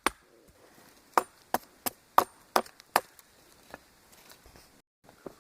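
Tomahawk blade chopping into wood, hacking a point onto a stick for a digging tool: about seven sharp chops in the first three seconds, then a lighter one and the chopping stops.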